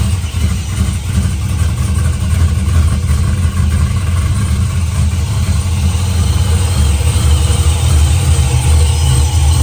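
Procharger-supercharged LS V8 in a 1971 Chevelle running with a steady low rumble, on a rough first base tune that runs poorly.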